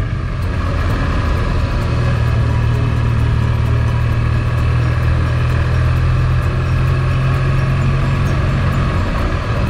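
Motorcycle engine running steadily at cruising speed, its note dipping briefly near the end.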